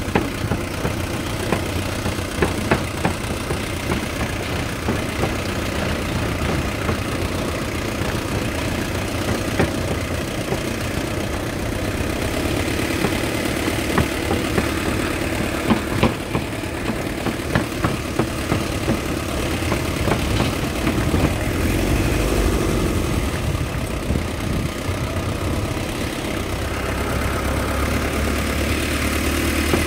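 Pickup truck engine running at low speed along a rough dirt track, with frequent knocks and rattles as the truck bumps over the ruts. The engine note rises and falls about two-thirds of the way through, and the hum grows stronger near the end.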